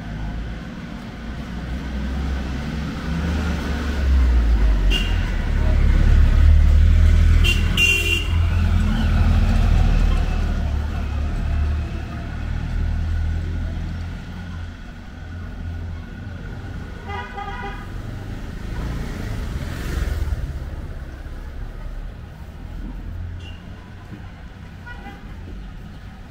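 Street traffic: a motor vehicle's engine rumbles past, swelling for several seconds and then fading. About two-thirds of the way through, a vehicle horn gives a quick run of short toots.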